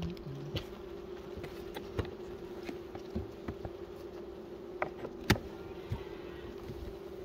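Honeybees buzzing around an open hive, a steady hum, with scattered light clicks and knocks, the sharpest about five seconds in.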